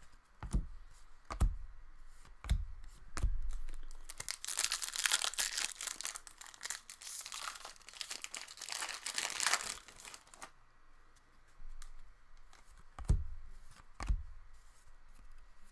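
A 2015-16 Upper Deck Series 1 hockey card pack wrapper being torn open and crinkled for about six seconds, starting about four seconds in. Soft taps of cards being handled come before and after it.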